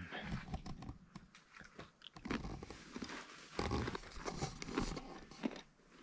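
Someone chewing and crunching a biscuit, with irregular crisp crunches.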